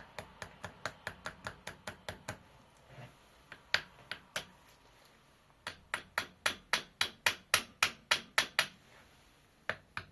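A very small hammer tapping a Woodruff key softly into its groove on a transmission gear shaft: runs of quick, light metal taps at about four or five a second, with short pauses between runs. The taps in the run near the end are louder.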